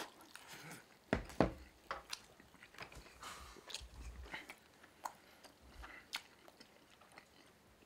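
A man chewing a mouthful of rice and grilled beef: quiet mouth and chewing noises with scattered sharp clicks, the two loudest just over a second in.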